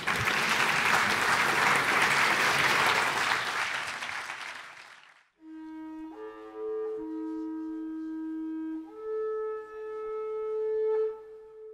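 Audience applauding, fading out about five seconds in. Then soft closing music of a few long held notes, changing every second or two.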